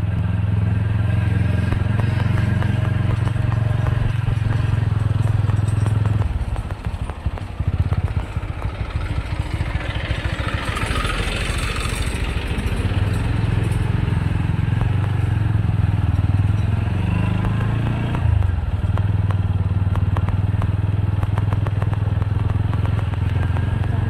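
Small motorcycle engine running with a steady low hum as it rides slowly. The steady note breaks off for several seconds in the middle, replaced by rougher noise, then returns.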